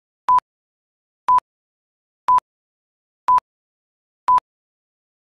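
Film-leader countdown beeps: five short, identical beeps, one each second, with silence between, one beep for each number counted down.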